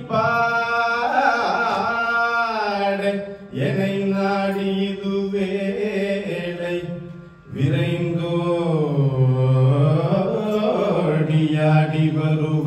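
A man singing a Carnatic devotional song solo into a microphone: three long phrases with held notes and sweeping ornamented glides, each separated by a short breath.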